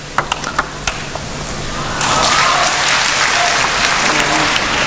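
Table tennis rally ending: a few sharp clicks of the ball off bats and table, then the crowd applauding from about two seconds in.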